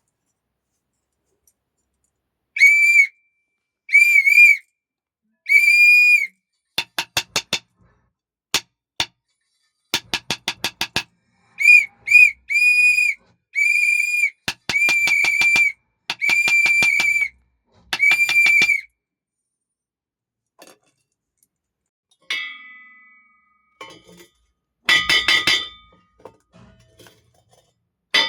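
A watchman's police whistle blown in a series of shrill blasts with a warbling trill: three medium blasts, then quick bursts of short toots, then several longer blasts. A few metallic clinks and rings follow near the end.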